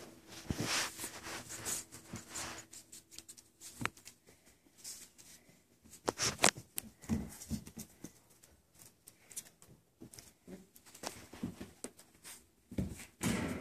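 Irregular rustling, scratching and soft knocks of month-old standard poodle puppies moving and wrestling on blankets in a wire pen, mixed with handling noise. There are a few sharper knocks, the loudest about six seconds in.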